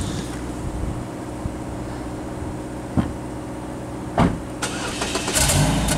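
Exhaust of a 2005 Chevrolet Cobalt LS's 2.2-litre four-cylinder engine idling steadily at the tailpipe, shortly after a cold start. Two short sharp clicks come partway through, and the sound grows louder and rougher near the end.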